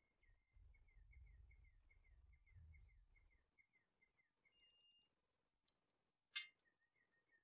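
Very quiet room tone with a faint run of short high chirps, about four a second, then a short electronic beep about four and a half seconds in and a single sharp click near the end.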